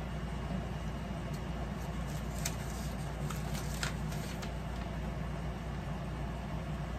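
Plastic packaging crinkling in the hands, with a few sharp crackles about halfway through, over a steady low hum.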